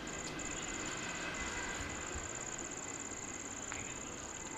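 Night insects trilling: a steady, high-pitched, finely pulsing chirr, with a soft click or two near the end.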